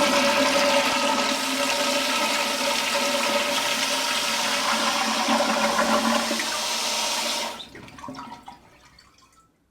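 Toilet flushing: a steady rush of water that drops off about seven and a half seconds in and trails away over the last two seconds.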